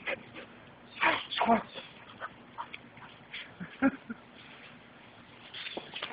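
A dog giving two short, loud yelping calls about a second in, and a shorter one near four seconds, among faint scattered ticks.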